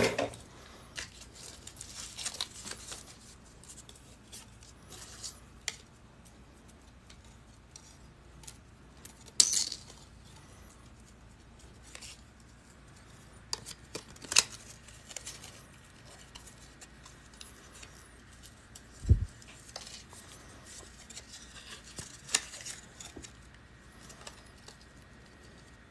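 Scattered light clicks and clinks of small paperclip-wire chainmail rings shifting as a chainmail piece is handled on a workbench. There is one dull knock about three quarters of the way through.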